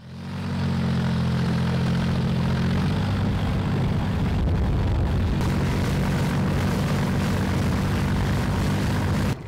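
Motorboat engine running steadily at speed with a low drone, over rushing water and wind noise. It fades in at the start and cuts off abruptly near the end.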